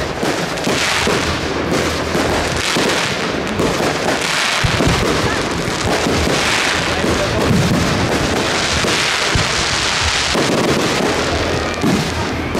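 Aerial fireworks shells bursting one after another, a continuous din of bangs and crackle with a few heavier low booms about a third of the way in and again later.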